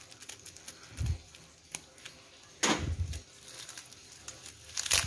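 Scissors snipping through plastic packing tape wrapped around a small parcel, with the tape and plastic wrap crinkling as they are handled and pulled back. The sounds come as a few separate short snips and rustles, the loudest about two and a half seconds in, and turn to crackling near the end.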